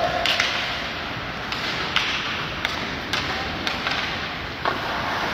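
Ice hockey play: skate blades scraping and hissing on the ice, with several sharp clacks of sticks striking the puck and the ice.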